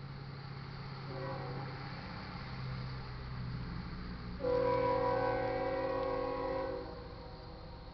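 Diesel locomotive air horn sounding for the grade crossing as the train approaches. A fainter blast comes about a second in, then a long, louder chord of several notes from about four and a half seconds to nearly seven. The horn is on the lead unit, a GE ES44C4.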